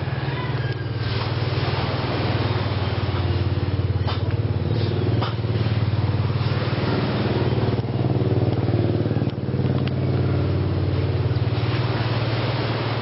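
An engine running steadily with a low drone, with a few sharp clicks or knocks over it.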